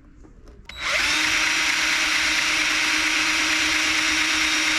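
Electric drill spins up about a second in and runs at a steady high speed, boring a hole for a pop rivet.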